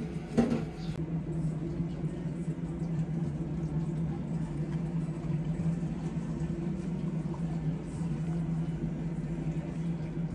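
A steady low machine hum with a faint even hiss behind it, and a brief louder sound just at the start.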